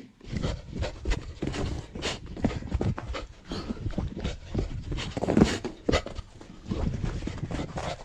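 A dog's breathing and movement noises, in a run of short irregular bursts and knocks.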